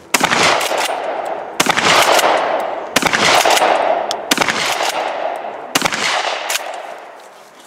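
Pump-action shotgun fired five times at an even pace, about a second and a half apart, each shot ringing out and fading slowly, with lighter clicks between the shots.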